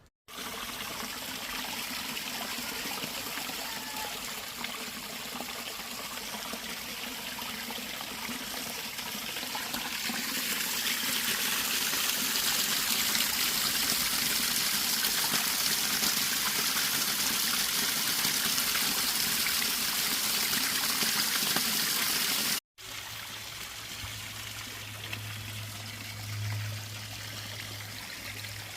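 Water running and trickling steadily, growing louder about a third of the way in. After an abrupt cut about three-quarters of the way through, the water is quieter, with a steady low hum under it.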